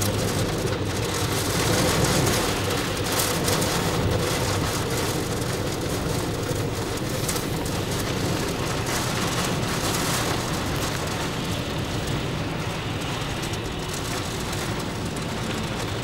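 Storm-force wind with rain and heavy surf breaking on the shore: a steady rushing noise that swells about two seconds in and eases a little toward the end.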